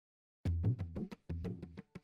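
Instrumental music that begins about half a second in: a quick rhythmic run of sharp percussive strikes over low notes.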